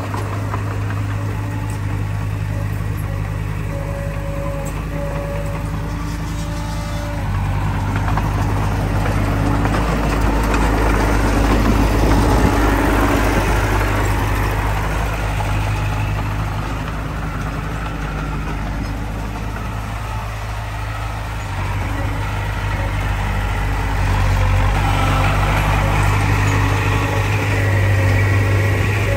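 Heavy diesel engine running continuously with a steady low hum. It gets louder about seven seconds in, eases off a little around twenty seconds, then picks up again near the end as the load changes.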